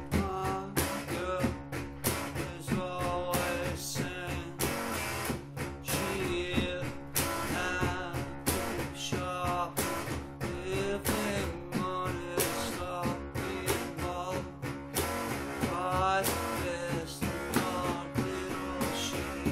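A rock song with a blues feel: a man singing over electric guitar, with a steady beat.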